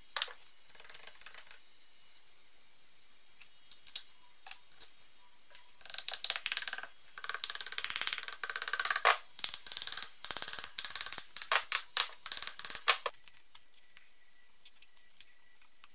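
Metal parts of a BMW E30 output shaft's CV joint and its flange bolts being handled. A few scattered clicks are followed by dense bursts of rapid clicking and rattling for several seconds, which stop about 13 seconds in.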